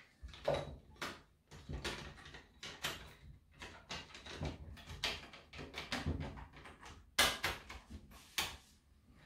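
Hands handling a Husqvarna chainsaw's plastic housing and a black cable around its exposed flywheel: a run of irregular small clicks, rustles and light plastic knocks, the two sharpest about seven and eight seconds in.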